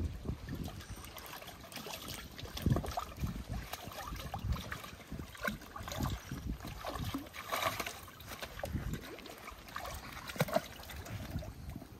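Otters splashing and moving about in shallow pool water: irregular sloshing and splashes with soft knocks.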